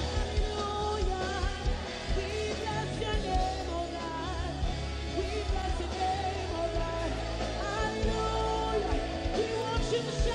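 A woman singing a gospel worship song live into a microphone, her voice bending and sliding through the melody, over a band with a steady bass and beat.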